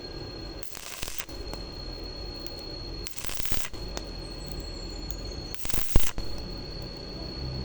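Stick-welding arc crackling in three short bursts of about half a second each, roughly two and a half seconds apart, with a steady high whine running throughout.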